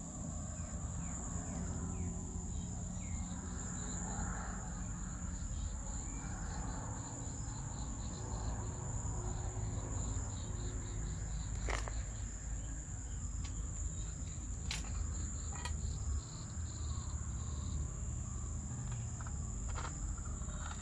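Insects shrilling in one steady high tone throughout, over a low rumble, with a couple of sharp clicks around the middle.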